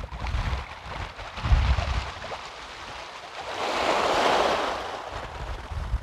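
Small waves breaking and washing up a sandy beach, with one wash swelling and fading about midway through. Wind rumbles on the microphone throughout.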